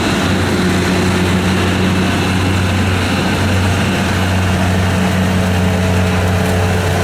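A heavy diesel engine running at a constant speed, giving a steady low hum that does not change in pitch.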